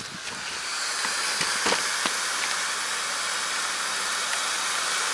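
Homemade saltpeter-and-sugar rocket motor burning with a steady hiss. The hiss builds over the first second, then holds at an even level.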